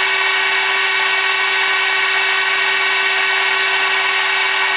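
Steady test tone of about 400 Hz, from a signal generator's modulated medium-wave signal, received by a Roberts Rambler transistor radio and played through its speaker with hiss behind it. The radio is being peaked for maximum output during medium-wave alignment.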